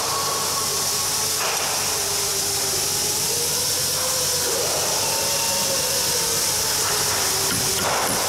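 Steady hissing noise with faint drifting tones under it, and a soft knock about a second and a half in and another near the end.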